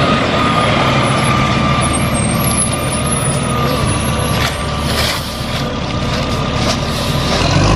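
Garbage truck running, a steady mechanical din with a thin steady whine over it.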